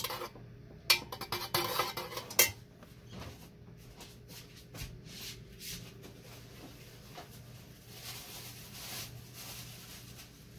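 A thin metal rod clinking against an aluminium pouring pitcher of melted paraffin wax: a few sharp metallic knocks in the first two and a half seconds, the last the loudest. After that there is only a faint hiss.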